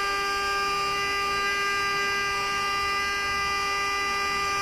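BioFire FilmArray Torch module bead-beating the sample pouch during nucleic-acid extraction: a steady, noisy machine whine held on one pitch with overtones.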